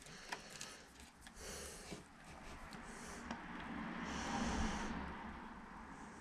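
A person breathing out through the nose close to the microphone: two short breaths, then a longer, louder one in the middle, with a few faint small clicks between.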